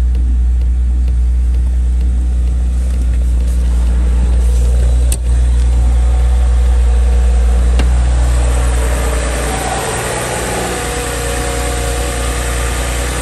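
BMW N52 straight-six engine idling smoothly at about 1000 rpm on a cold start, running well again on new steel VANOS bolts: back to normal purring. The deep rumble of the cabin eases about nine seconds in as the engine is heard at the open engine bay, with a single click about five seconds in.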